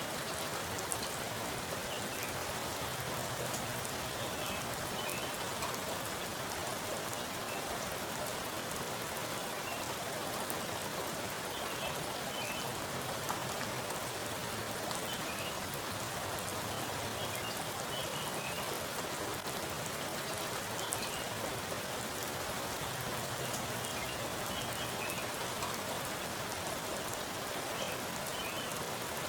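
Heavy rain falling onto a pool of standing water: a steady, dense patter with individual drops plinking on the surface.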